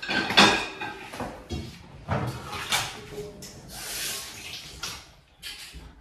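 Ceramic and steel plates clattering and knocking against the wire racks of a dishwasher as they are loaded in, loudest about half a second in, with a brief rushing hiss around four seconds in.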